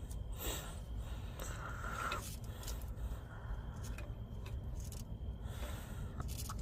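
Hands handling wiring and connectors on the dozer: a few brief scrapes and rustles over a low steady rumble.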